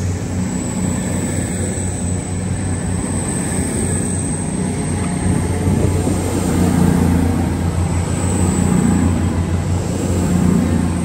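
Diesel train engine running with a steady low drone that swells slightly about halfway through, with a faint high whine above it.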